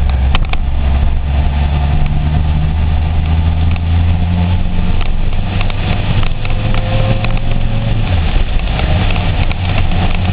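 Honda CBR900RR Fireblade's inline-four engine running as the bike rides along, heard from an onboard camera with wind and road noise. The engine note changes about eight seconds in.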